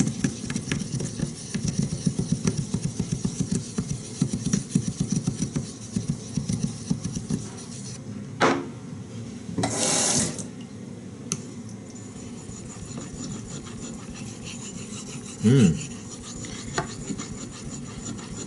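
A nagura stone rubbed rapidly back and forth on a wet Shapton #5000 water stone, a gritty scrubbing that raises a slurry on the stone's surface. The strokes stop after about seven seconds, leaving quieter handling with a short hiss around ten seconds in.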